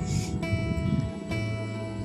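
Background music of plucked acoustic guitar, with held notes and a new note struck every second or so. A short hiss sounds at the very start.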